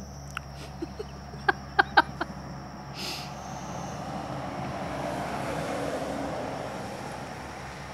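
A vehicle passing by, its noise swelling and fading over a few seconds, after a few short sharp sounds about two seconds in. Crickets chirp steadily in the background.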